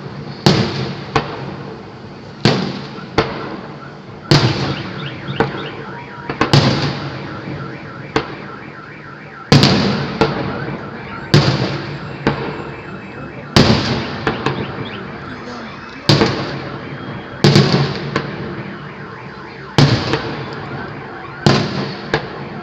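Festive fireworks salute bursting, a loud bang about every two seconds, each followed by a long echoing tail, with smaller pops between. A car alarm set off by the blasts sounds underneath.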